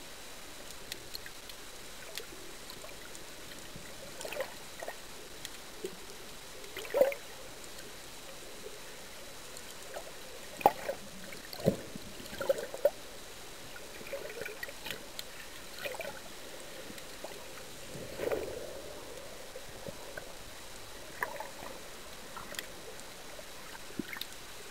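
Underwater ambience picked up by a camera on a speargun: a steady hiss scattered with faint clicks, and a few louder knocks and gurgles.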